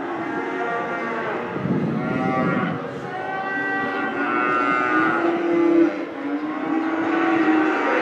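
Several cattle mooing in long, overlapping calls.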